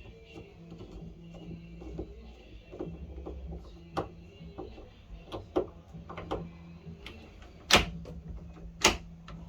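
Metal clicks and taps from a bathroom door lock being screwed back onto the door, with two loud sharp clicks near the end.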